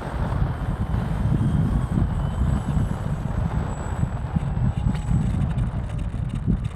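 Heavy wind buffeting on the microphone, with an uneven low rumble, over the faint steady high whine of the electric motors of a FlightLine P-38L Lightning RC model plane in flight.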